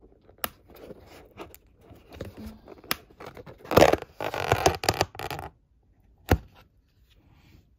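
Lid of a plastic takeout bowl being pried open by hand: scattered clicks and creaks at first, then a louder stretch of crackling and scraping for about two seconds as the lid pulls free, and one sharp click near the end.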